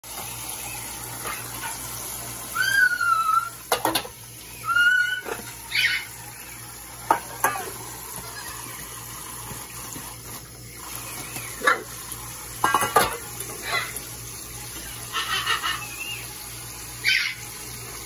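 Kitchen faucet spray running steadily into steel bowls in a sink while a hyacinth macaw bathes. Over the running water come a few short, bending calls from the bird and sharp splashes or knocks as it moves and flaps its wet wings.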